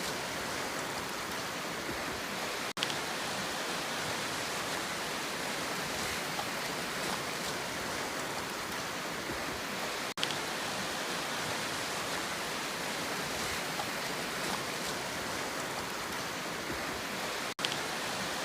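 Steady rushing noise of sea water, with no rise and fall of separate waves. It drops out for an instant three times, about seven seconds apart.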